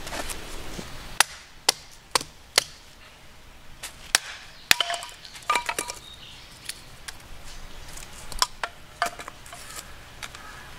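Firewood being split into kindling on a wooden chopping block: a series of sharp, irregularly spaced wooden knocks and cracks, most of them in the first half.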